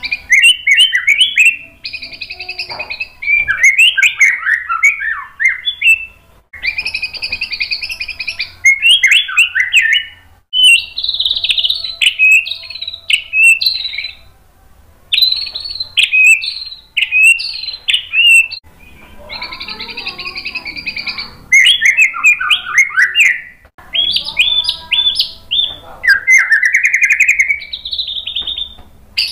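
Male white-rumped shama singing loudly in full song: phrases of one to three seconds, each mixing held notes with quick runs of chattering notes, separated by short pauses.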